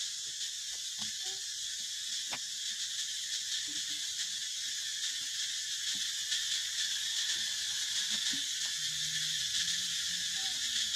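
A steady, high-pitched chorus of insects buzzing without pause, with a single sharp click about two and a half seconds in.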